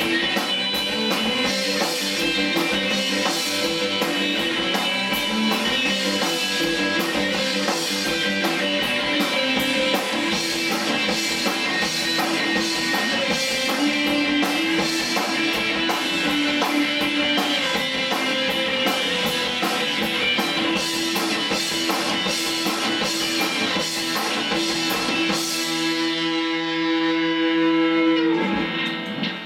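Indie rock band playing live: two electric guitars, electric bass and drum kit, with steady cymbal beats. Near the end the drums drop out and the guitars hold ringing notes that swell, then stop.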